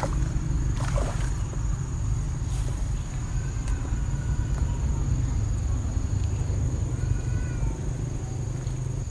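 A hooked tilapia splashing and flapping at the water's edge, with two short splashes near the start, over a steady low rumble and a thin, steady high whine, plus a few faint short chirps.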